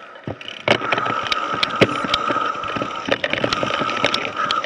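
Mountain bike rolling down a rocky dirt trail, getting going within the first second: tyres crunching over rock and dirt, the bike rattling and knocking sharply over bumps, with a steady high buzz underneath.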